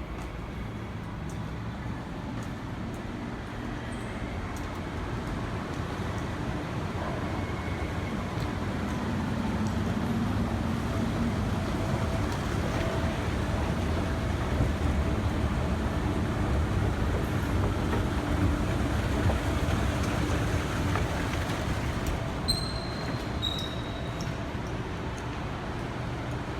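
Steady low rumbling noise that grows louder through the middle, with a few faint clicks and two short high beeps near the end.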